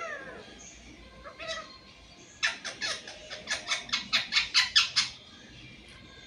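Pet parrot calling: a loud call falling in pitch at the start and a shorter one about a second and a half in, then a fast run of about a dozen harsh squawks, about five a second, growing louder and stopping about five seconds in.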